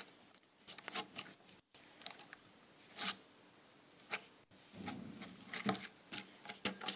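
Slime being spread and worked by hand with added water, making irregular small sticky clicks and squelches, busiest about five seconds in.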